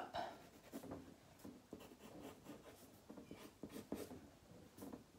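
Faint, irregular strokes of a graphite pencil scratching on drawing paper as the outlines are gone over and darkened.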